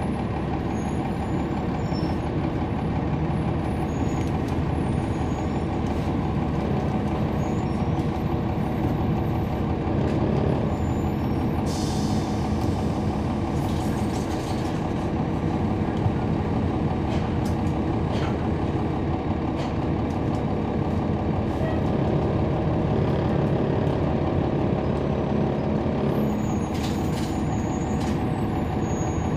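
Heard from inside a 2011 NABI 40-SFW transit bus: its Cummins ISL9 diesel engine running with a steady drone as the bus drives, driving through a ZF Ecolife six-speed automatic transmission. A brief hiss of air comes about twelve seconds in and again near the end.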